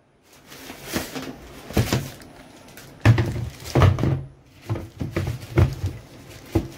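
Hands rummaging inside a top-loading washing machine tub, making a string of irregular knocks and thunks against the tub and its fittings, about one a second.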